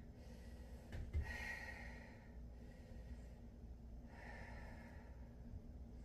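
A woman breathing audibly while holding a standing yoga pose: two long breaths about three seconds apart, with a soft thump about a second in.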